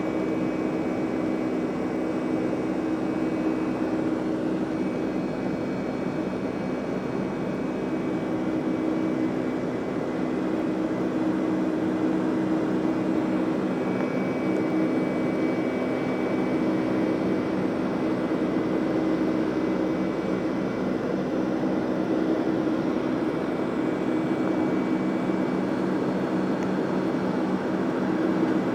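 Boeing 757-300 jet engines running at high power, heard from inside the passenger cabin as a steady rushing noise with a low hum and a faint high whine.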